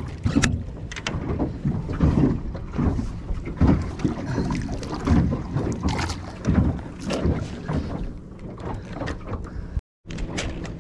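Water slapping and knocking against a small boat, with wind on the microphone; the sound cuts out completely for a split second near the end.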